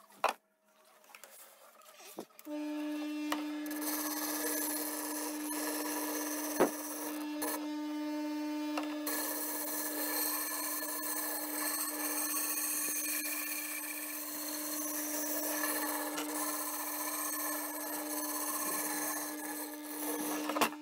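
Bench disc sander starting about two seconds in and running with a steady motor hum. A curved wooden board edge is pressed against the spinning sanding disc, giving a continuous grinding rasp that eases off briefly once partway through.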